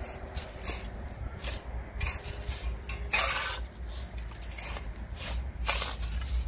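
Steel shovel digging into and tossing sand in a loaded truck bed: a series of gritty scrapes and swishes, about one or two a second, the loudest about halfway through.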